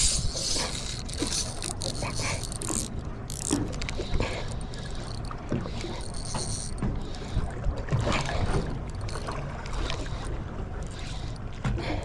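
Spinning reel being cranked in against a hooked fish on a light-jigging rod, its handle and gearing giving scattered clicks, over a steady low rumble of wind and sea against the boat.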